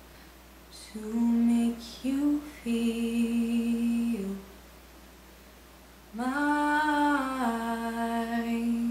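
A teenage girl's voice singing wordless notes unaccompanied: a few short phrases, then a pause, then about six seconds in a long note that slides up, holds and steps down to a lower held note.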